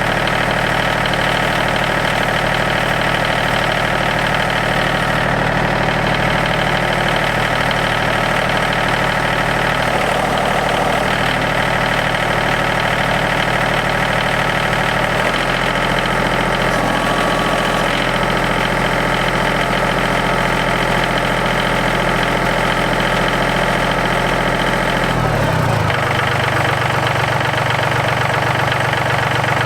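Yanmar YT235 compact tractor's diesel engine running steadily, its note shifting about halfway through and again near the end.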